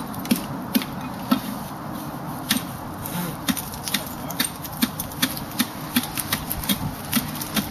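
Ice screw being turned into waterfall ice: a string of sharp, crunchy clicks about twice a second, irregularly spaced, as the threads bite into the ice.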